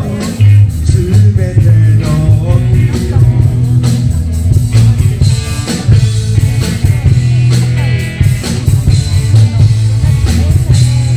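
Live rock band playing amplified: drum kit with a steady beat, a heavy bass line and electric guitar.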